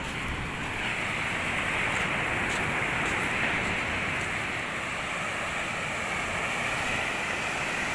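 Ocean surf breaking and washing up a sandy beach: a steady rush of waves.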